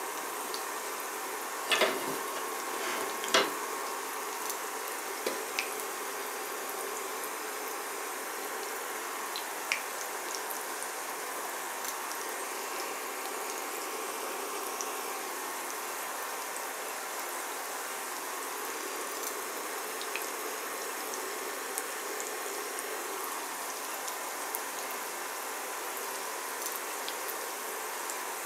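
Breaded chicken nuggets shallow-frying in vegetable oil in a ceramic pan, giving a steady sizzle with scattered small crackles. Two louder pops come in the first few seconds.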